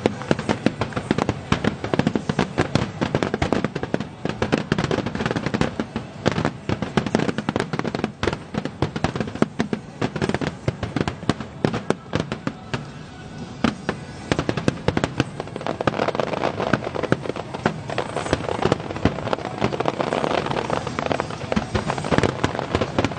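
Fireworks display: a rapid, dense barrage of shell bursts and crackling. It eases for a moment about halfway through, then builds up again.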